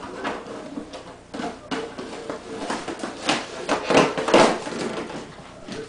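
Empty plastic water jug crinkling and clattering against a tile floor as a puppy mouths and bats it, in irregular bursts that are loudest a little past the middle.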